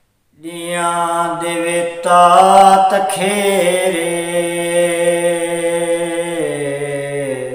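A man singing a Sufi kalam unaccompanied, starting about half a second in and holding one long note that steps down in pitch near the end.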